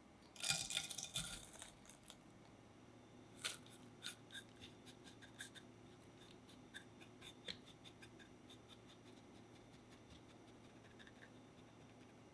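Buttered whole wheat biscuit crumbs scraped with a spatula from a bowl into a stainless steel cake ring: a flurry of scraping and clicking about half a second in. Then the spatula presses and taps the crumb base flat inside the ring, giving a run of light taps and clicks that thin out over the last few seconds.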